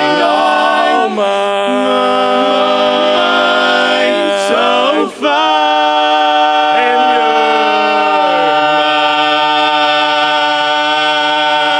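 Male barbershop quartet singing a cappella in close four-part harmony, ending a song on long held chords. There is a short break about five seconds in, then one long final chord is held.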